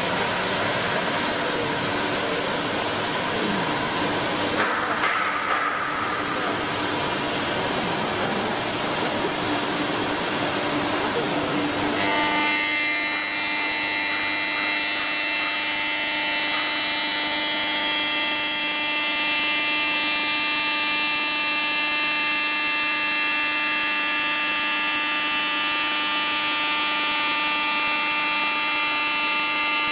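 CNC stone router machining quartz stone, a loud steady noisy cutting sound with a high spindle whine that rises about a second in and then holds. About twelve seconds in, the sound changes suddenly to a steady whine of several even tones.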